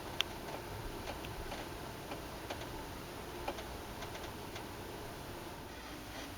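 Scattered light clicks and ticks at an irregular pace over a steady low background rumble, with one sharper click just after the start.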